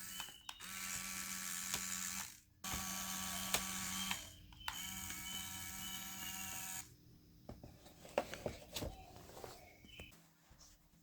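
Small DC motor in a toy cardboard air conditioner running with a steady whine. It is switched off briefly about two seconds in, runs again, and stops about seven seconds in, followed by light clicks and taps.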